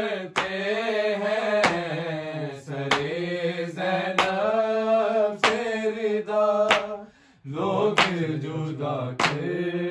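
Unaccompanied male voices chanting a noha, an Urdu Muharram lament, with a sharp hand-struck beat of matam about every second and a quarter keeping time. The chant breaks off briefly just after seven seconds in, then resumes.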